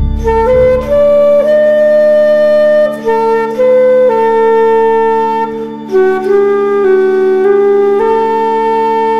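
A slow solo melody on a woodwind instrument over a steady held drone, moving stepwise between long sustained notes with brief breaks between phrases.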